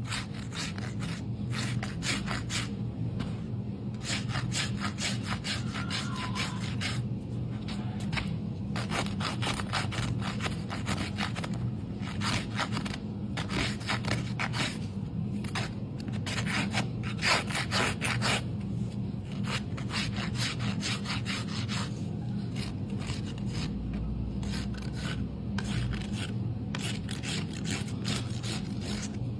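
Farrier's rasp working a horse's hoof wall, many quick rubbing strokes in a steady rhythm.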